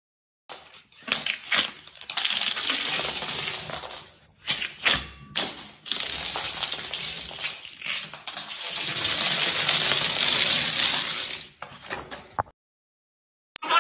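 A scraper cracking and crumbling a brittle white textured coating off a wall, in several long scraping passes, with a crackle of sharp clicks as the flakes break and fall.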